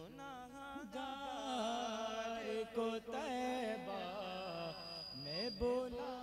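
A man's voice singing a held, wavering melodic line of a naat without clear words, the pitch bending and gliding in ornaments.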